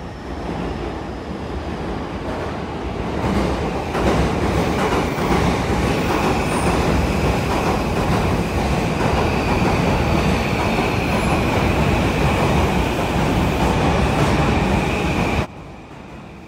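Straddle-beam monorail train approaching on its elevated beam, getting louder over the first four seconds, then running loud and steady with a high whine. About a second before the end the sound drops sharply to a quieter running sound.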